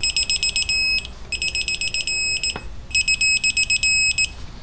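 A digital torque wrench beeps rapidly in three bursts of about a second each, roughly ten high beeps a second: its alert that the 60 ft-lb set torque is reached on the flywheel bolts. There is a single sharp click about two and a half seconds in.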